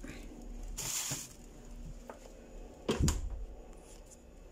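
Rustling and handling noises close to the microphone, with a dull thump about three seconds in.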